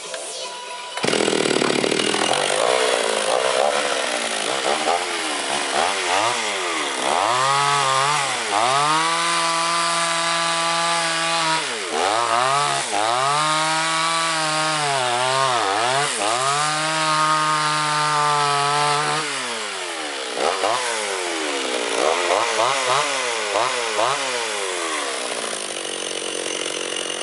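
Vulcan two-stroke chainsaw cutting wood into planks, starting about a second in. The engine revs rise and hold, then repeatedly sag low and recover as it bogs under load. The owner calls the saw choking and its chain dull.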